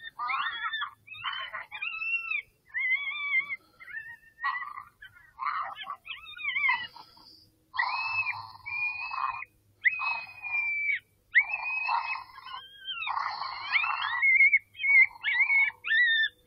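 Series of high, wavering animal cries, each about a second long with short gaps between them, from a predator call sounding to lure coyotes.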